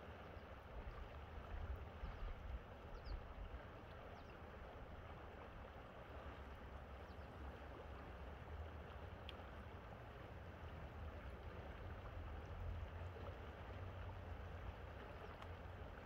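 Shallow river water flowing steadily over and around rocks, a soft, even rushing, with a low, uneven rumble of wind on the microphone that swells briefly about two seconds in.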